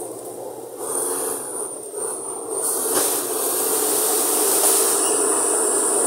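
Komatsu D85ESS-2 crawler bulldozer's diesel engine running under load as the machine crawls on its tracks. It gets louder about a second in and again about two and a half seconds in, with a high whine over it that grows stronger from about halfway.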